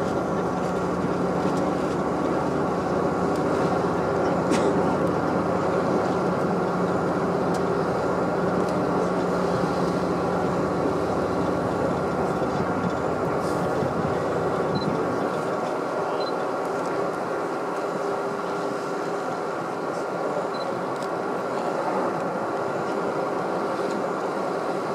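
A boat's engine running with a steady hum. The deepest part of the rumble drops away about fifteen seconds in.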